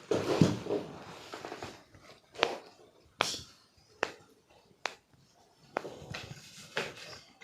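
Rustling and body movement during a chiropractic manipulation of the back and neck, then four sharp clicks a little under a second apart, then more rustling near the end.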